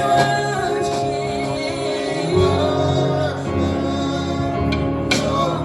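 Music with singing, gospel in style.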